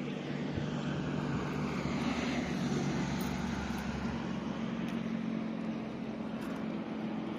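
An engine droning steadily, swelling slightly two to three seconds in.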